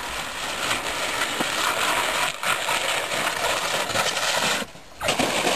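Wind buffeting an outdoor microphone: a steady rushing noise with low rumbles, which drops away for a moment near the end.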